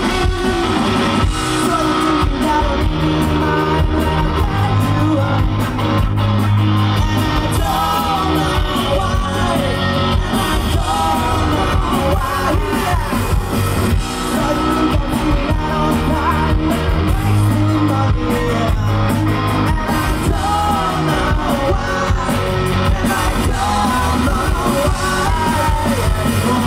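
A live rock band plays loud, steady hard rock on electric guitar, bass and drums, with a male singer shouting the vocals into a microphone.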